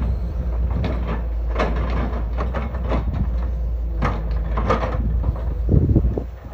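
Crawler excavator's diesel engine running steadily, with scattered clanks and scrapes as the steel bucket digs into dry soil. A heavier knock comes near the end.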